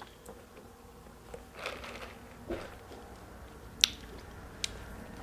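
Quiet close-up eating sounds, with a sharp click a little under four seconds in and a fainter one shortly after.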